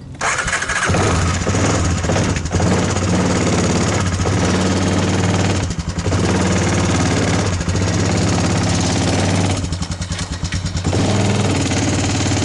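A car engine catching and then running steadily with an even low hum, dipping briefly a few times.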